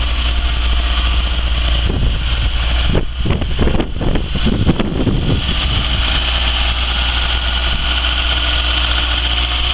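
1981 Ford Cortina MK5's engine idling steadily on the choke, freshly started after months of standing and running smoothly. A stretch of uneven noise breaks over the hum between about two and five seconds in.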